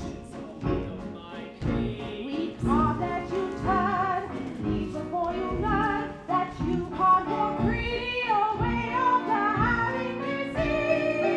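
Live stage-musical music: a wavering sung melody over band accompaniment with a regular beat about once a second.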